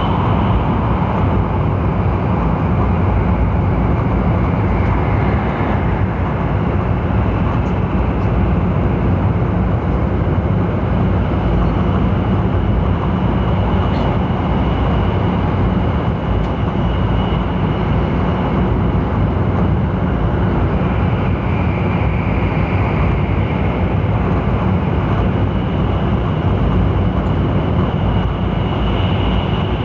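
Interior running noise of a Taiwan High Speed Rail 700T trainset at speed, heard from inside a passenger car: a steady deep rumble with a faint high whine that comes and goes.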